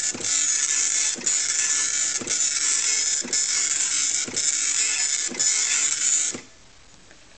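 Tandy TRS-80 DMP-420 nine-pin bi-directional dot-matrix printer running its self-test print: the print head buzzes across the paper one line about every second, with a short break between passes, and stops about six seconds in.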